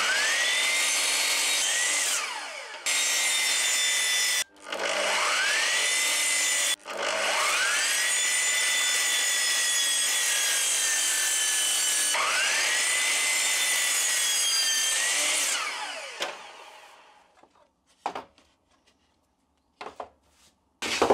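Mitre saw running in several bursts, cutting slots into wood. Its motor whine rises in pitch at each start and winds down with a falling whine, briefly about two seconds in and finally about sixteen seconds in. A few light knocks follow.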